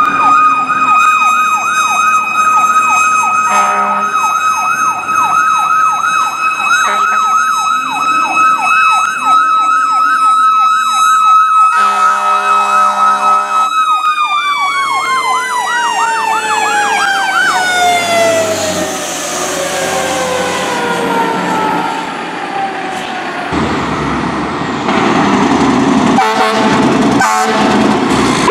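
Fire engine sirens: a high steady siren wail with a fast electronic yelp warbling beside it. A low horn sounds for about two seconds, then the wail slides slowly down in pitch over several seconds as the mechanical siren winds down. Engine and road noise from the passing truck rises near the end.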